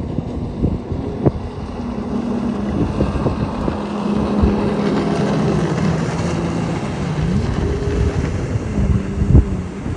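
Jet ski engine running as it crosses the water, its pitch wavering and dipping briefly about seven seconds in, with wind buffeting the microphone.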